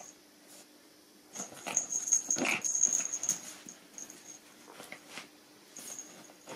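Two Japanese Terriers play-fighting, with a stretch of dog play noises from about one and a half to three and a half seconds in, loudest near two and a half seconds, and soft scuffling on the sofa and quilt around it.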